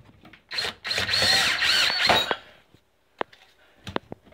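Cordless drill driving a screw up through the dishwasher's mounting bracket into the wood of the countertop. The motor runs for about a second and a half, its whine dipping and rising in pitch as the screw goes in, then stops. A few light clicks follow.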